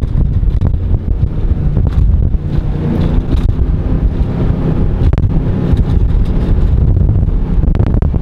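Formula powerboat's twin engines running underway, a steady low drone, with heavy wind buffeting the microphone.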